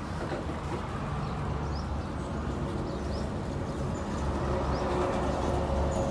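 A steady low mechanical hum, with small birds chirping briefly now and then above it.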